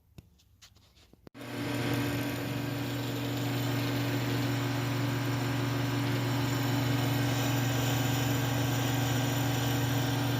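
A power tool working a piece of steel: it starts about a second in and runs steadily, a strong low hum under a loud hiss, until it cuts off abruptly at the end.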